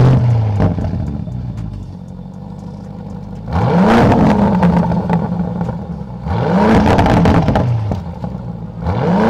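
Lamborghini Urus's twin-turbo V8 through a Fi Exhaust valvetronic cat-back: a loud burst at the start settles into idle, then three free revs, each rising and falling in pitch, a few seconds apart.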